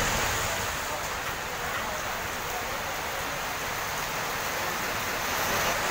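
Heavy rain falling steadily on a street, an even hiss of rain on wet pavement.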